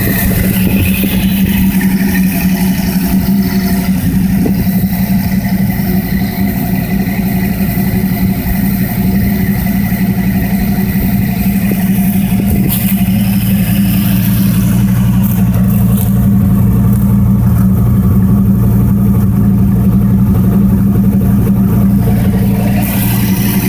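Dodge Viper 8.3-litre V10 with a big Competition Cams camshaft and stock exhaust running steadily on its first start after a rebuild. With no tune for the cam it won't idle on its own, so the idle is held up by a vacuum leak from the unplugged brake booster hose.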